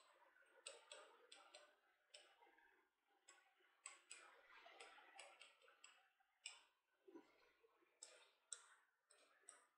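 Faint, irregular taps and light scratches of a writing stick on a board as words are written out by hand.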